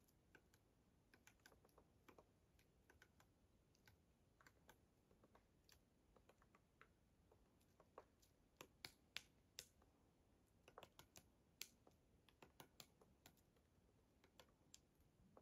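Eurasian three-toed woodpecker pecking at tree bark while foraging: faint, irregular taps, now single, now in quick runs of two or three, coming more often in the second half.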